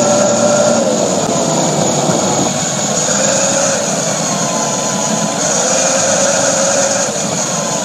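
Twin Tamiya 540 electric motors and gearboxes of a 1/16 Heng Long Type 99 RC tank whining steadily as it drives, heard close up from on board the hull. The pitch wavers slightly with speed.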